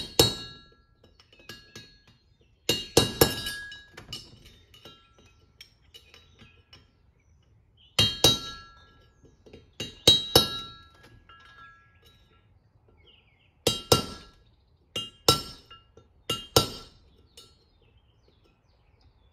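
Hammer striking a steel punch against the race seat of a Toyota 8-inch differential's cast-iron housing, peening down raised metal so the new bearing race will seat fully. Sharp ringing metal strikes come singly or in quick groups of two or three, with pauses of a few seconds between.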